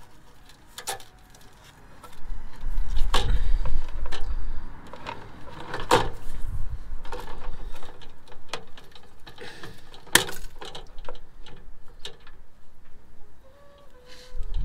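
Scattered clicks and knocks of hand work under a vehicle: a cable being handled and pliers clicking against metal, over a low rumble in the first few seconds.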